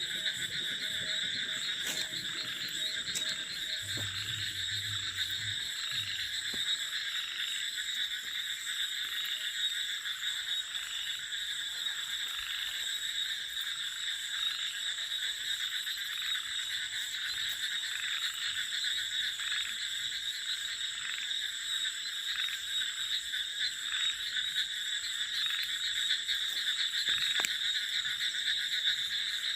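Steady chorus of calling frogs, several high layers holding on without a break, with a low pulsing throb in the first few seconds.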